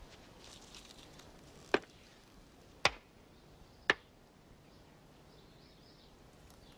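Terracotta pots hanging on ropes knocking together in a row like a Newton's cradle: three sharp clacks about a second apart.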